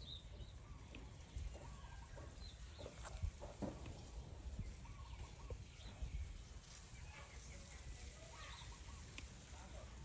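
A parakeet making faint, soft chirps and chatter in short scattered notes over a low rumble.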